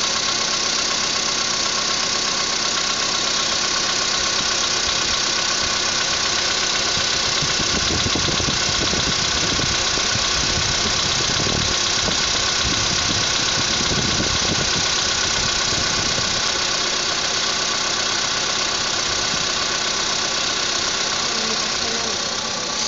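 Skoda Rapid's petrol engine idling cold with a light knocking, heard just after the pistons were replaced; the low rumble swells for a few seconds in the middle. It is the cold-engine knock that the owner says always knocks a little and then stops.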